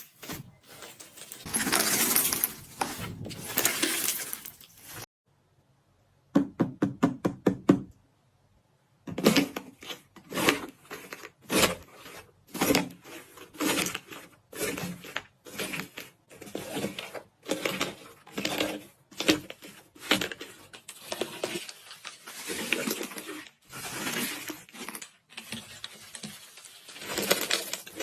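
Iceberg slime's dried, crispy crust crackling and crunching as it is pressed and squeezed, in repeated bursts about once or twice a second. There is a brief pause about five seconds in, then a quick run of sharp clicks, then the crunching resumes.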